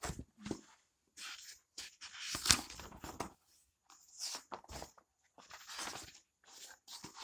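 Paper book pages being turned and rustled by hand: a string of separate short rustles and crisp page snaps, the loudest about two and a half seconds in.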